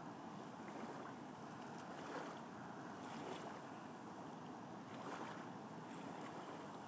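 Fast water rushing and splashing over a small waterfall: a steady rushing noise that swells slightly a few times.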